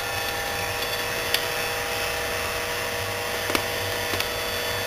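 Xerox A-Color 935 colour copier running with its covers off: a steady mechanical hum and whine from its drive motors, fans and drum gear train, with a couple of faint clicks.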